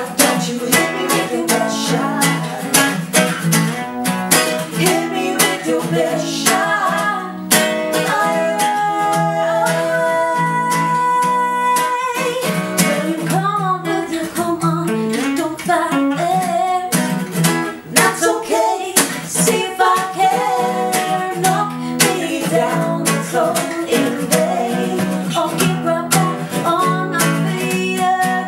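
Acoustic guitar strummed in a steady rhythm, with a melody line of held and sliding notes over it in the middle.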